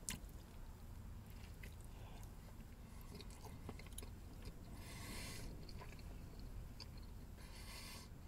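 A man chewing a mouthful of burger, with faint wet clicks from his mouth. Two short hissing sounds come about five and about seven and a half seconds in.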